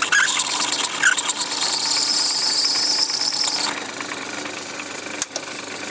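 Metalworking lathe running with a steady motor hum while a hand-held blade scrapes the spinning workpiece, giving a high-pitched scraping squeal from about a second in until it cuts off near the middle. After that only the lathe runs, with a single sharp click near the end.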